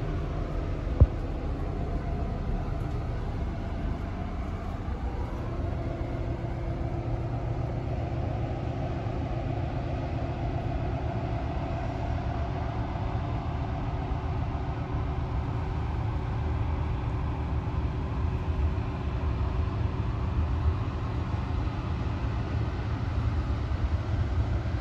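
Passing cargo ship's engine giving a steady low rumble, with a faint drone that slowly shifts in pitch as the ship moves by. A single sharp click about a second in.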